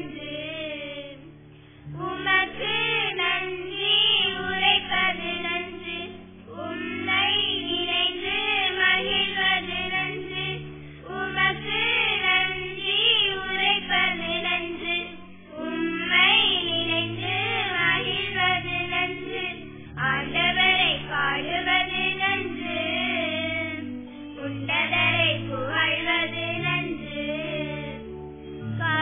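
A group of schoolgirls singing a Tamil Christian prayer hymn together into a microphone, over held low accompaniment notes.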